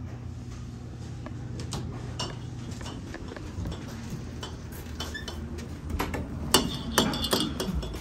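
Restaurant clatter: dishes and cutlery clinking over a steady low hum, with a few louder, sharper clacks near the end.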